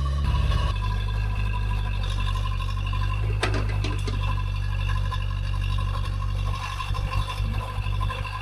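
Heavy machine's engine running steadily with a low drone, with a brief clatter about three and a half seconds in.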